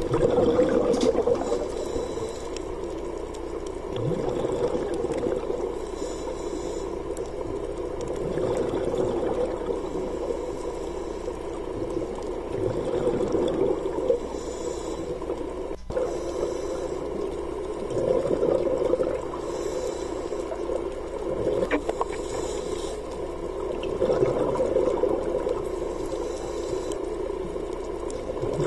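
Scuba diver breathing through a regulator, heard underwater: swells of bubbling exhaled air every few seconds over steady water noise, with brief hissing between them.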